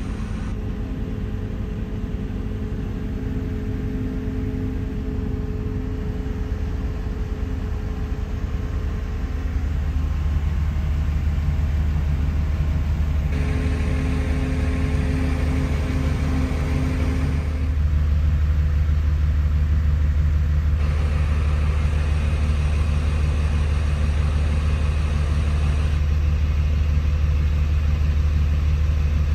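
Steady low engine rumble heard from inside a pickup's cab, growing louder about ten seconds in and again about eighteen seconds in.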